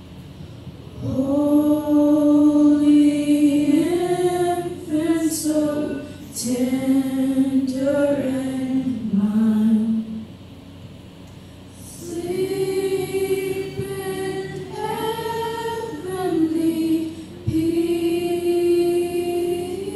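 Church choir singing a slow worship song, mostly voices, with long held notes in phrases broken by a short pause about halfway through.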